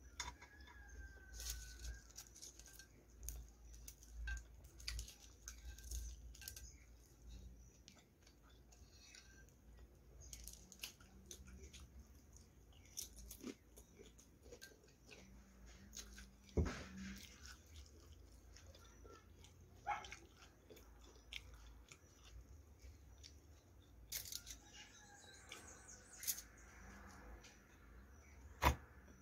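Close-up eating sounds: chewing and crunching of potato chips and a sloppy joe sandwich, irregular crunches and mouth clicks, with a few sharper, louder clicks.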